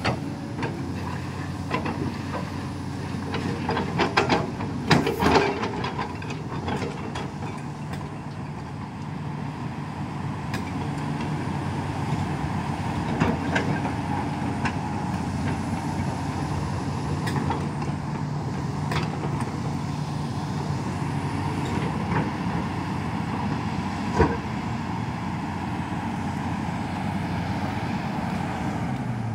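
Kobelco SK380XD LC excavator running steadily while its swing, boom and arm are worked in a function check after solenoid valve refitting, the engine and hydraulics humming evenly. A cluster of sharp clanks comes a few seconds in, with single ones later.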